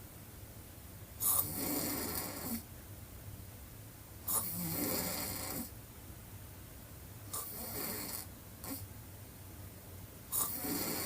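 A woman snoring with her mouth wide open: four rasping snores about three seconds apart, each starting sharply and lasting about a second, with quiet breaths between.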